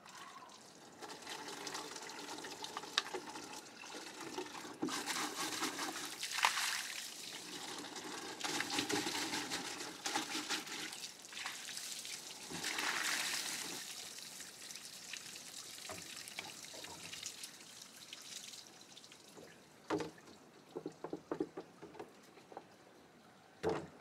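Water pouring and trickling, followed near the end by a few light knocks.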